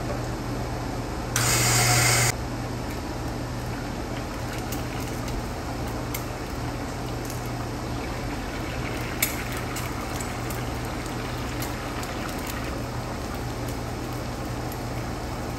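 Cooking oil poured into a hot frying pan, with a loud burst of hissing for about a second, then eggs frying with a steady sizzle over a constant low hum. A single sharp tap about nine seconds in as an egg is cracked.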